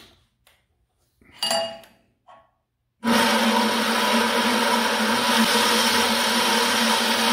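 A few light knocks and a short metallic clink, then about three seconds in a servo-motor-driven band saw switches on. It runs steadily with a low hum, blade at about 475 feet a minute, not yet cutting.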